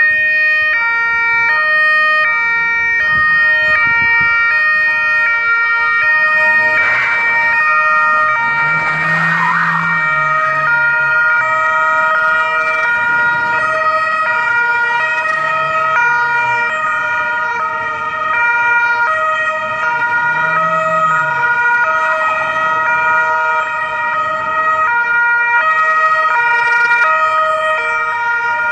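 Several Italian police patrol cars sounding their two-tone sirens at once, each stepping between a high and a low note about once a second, out of step with one another so the notes overlap.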